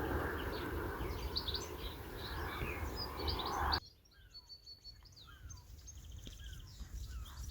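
Small birds chirping and calling, over a steady rushing noise that cuts off abruptly about halfway through, leaving the birdsong alone.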